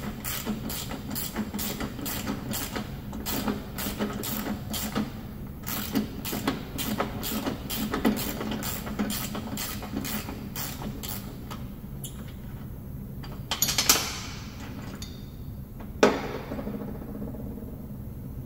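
Hand ratchet clicking in steady strokes, about three clicks a second, as a mower-deck pulley bolt is backed off. The clicking stops about two-thirds of the way through, followed by two sharp metal clanks.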